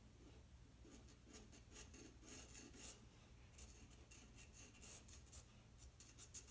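White charcoal pencil scratching faintly on black drawing paper in short, repeated sketching strokes, with a brief pause about three seconds in.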